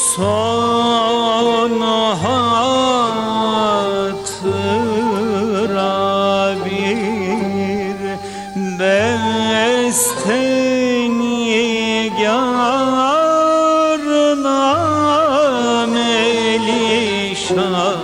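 Turkish classical art song: a man's voice singing long, ornamented phrases with wavering turns, over instrumental accompaniment.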